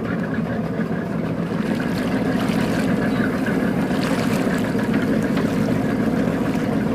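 Tour boat's engine running with a steady low drone, growing a little louder about two seconds in.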